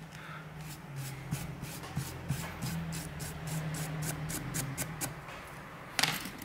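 Small brush scrubbing the edge of a Samsung Galaxy Tab A 10.1 tablet frame in quick short strokes, about four a second, clearing out glass fragments and leftover screen adhesive. A louder knock comes near the end.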